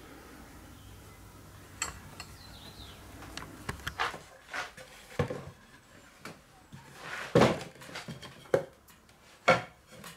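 Painted wooden hive parts knocking and clattering as they are handled and set against each other and the work table: a string of sharp wooden knocks at irregular intervals, louder in the second half.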